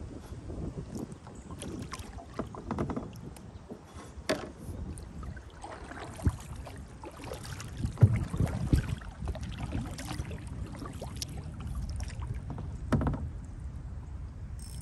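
Kayak being paddled: a double-bladed paddle dipping and pulling through the water with irregular splashes, and a few sharp clicks and knocks scattered through it.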